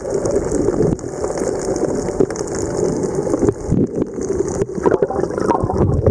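Muffled rushing and gurgling of water around a camera held underwater, a steady noisy wash with a faint high hiss above it.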